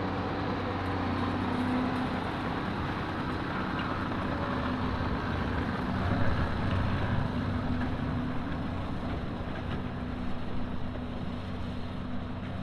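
Tractor engine running steadily under load, pulling a Vermeer 604N round baler that is taking in a heavy windrow of hay.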